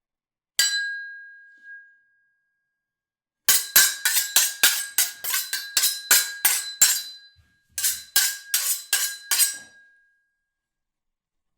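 Metal blades clashing in a sword or knife fight. A single ringing clash comes first, then after a pause a rapid run of about a dozen clashes at roughly three a second, a short break, and about six more. Each strike rings with the same high metallic tone.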